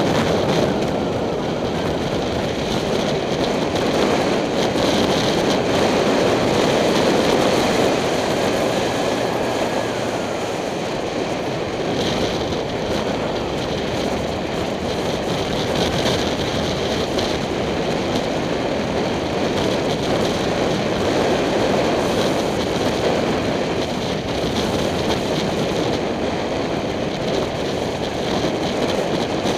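Steady wind rush and road noise on a helmet-mounted camera while riding a 2007 Kawasaki Ninja 250 motorcycle, swelling and easing slightly with speed.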